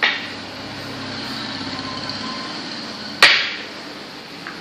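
Two sharp clacks from play at a makruk board, about three seconds apart, the second the louder, over steady background noise.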